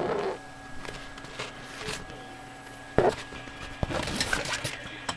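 Handling noise from a canvas being moved about: rustling with a few sharp knocks, loudest at the start, about three seconds in, and again around four seconds, over a faint steady hum.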